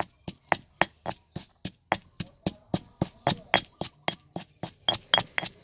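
Pestle pounding chilies in a heavy stone mortar: steady sharp strikes, about four a second. A few strikes near the end give a short high ring.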